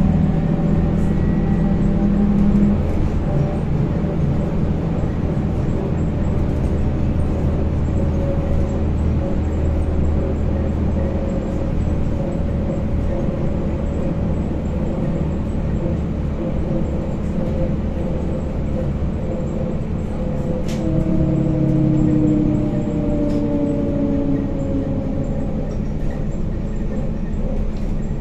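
Inside a MAZ-103T trolleybus under way: the electric traction motor's whine, shifting in pitch with speed, over steady road and tyre rumble.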